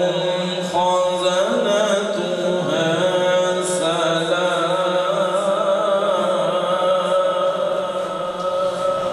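A man's voice reciting the Quran in the melodic tajweed style, with long ornamented melismas that waver in pitch. Over the second half it settles into one long held note.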